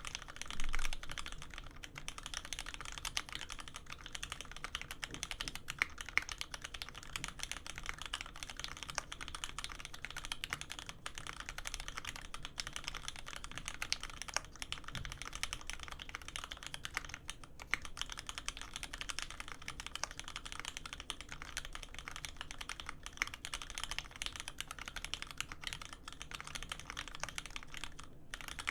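Custom mechanical keyboard with lubed Cherry Hyperglide Black linear switches on 70g springs, an aluminium plate and GMK keycaps, typed on quickly and steadily: a dense stream of keystroke clicks, with one louder stroke about a second in and a couple of brief pauses.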